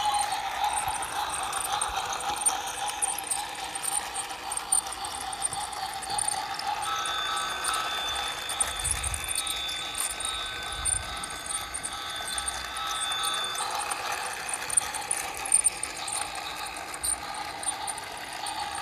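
Battery-powered toy train running on its plastic track: the small geared motor whirs steadily, with light rapid clicking and rattling from the wheels and couplings.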